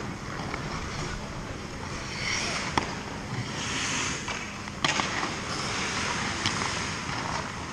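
Hockey skate blades scraping and gliding on rink ice, with swells of scraping hiss as a skater pushes off and two sharp knocks, the second a little louder, about three and five seconds in.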